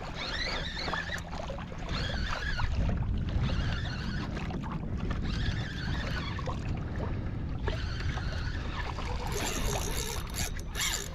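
Water slapping and lapping against a plastic fishing kayak's hull as a hooked shark tows it across the shallow flats, with wind buffeting the microphone.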